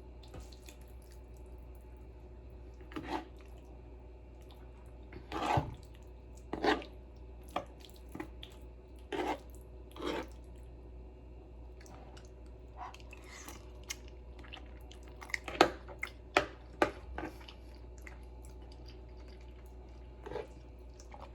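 A person eating a forkful of hot, cheesy pasta: scattered chewing and lip smacks with a few short sharp clicks, over a steady low hum.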